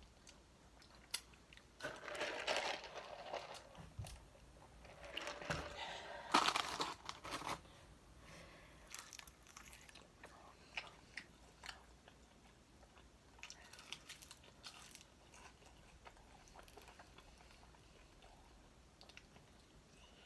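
Crispy fried chicken wings being bitten and crunched, in two bursts of loud crunching during the first several seconds. After that comes quieter chewing with small scattered clicks.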